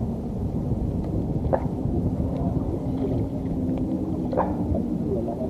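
Steady low rumble of wind and water around a small wooden outrigger fishing boat at sea, with a faint steady hum underneath.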